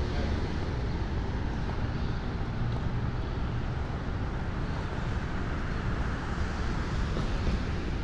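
Steady outdoor city ambience: a continuous low rumble of road traffic with a faint hiss over it.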